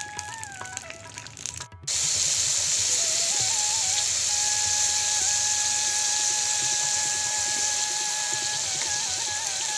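Ingredients sizzling in hot oil in a pan, a loud, steady hiss that starts abruptly about two seconds in, under background music with a flute-like melody.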